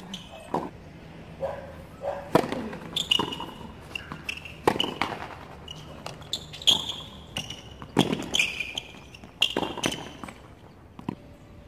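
Tennis rally on a hard court: rackets striking the ball and the ball bouncing, in sharp hits a second or two apart.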